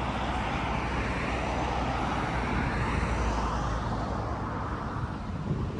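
Steady road-traffic noise, a continuous rumble of passing vehicles that swells a little around the middle and eases slightly near the end.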